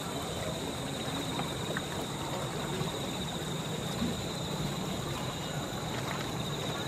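Steady outdoor background noise: an even hiss with a constant high-pitched drone, and one faint knock about four seconds in.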